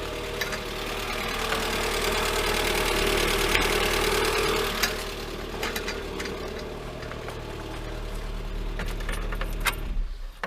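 Freshly overhauled Lada Granta VAZ-21126 16-valve engine running in after its first start. It gets louder for a few seconds, settles back to idle, and stops abruptly just before the end.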